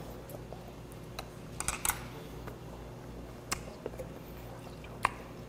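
A man chewing a mouthful of fried fish cake, with small wet mouth clicks and smacks, a quick cluster of them about two seconds in. A low steady hum sits underneath.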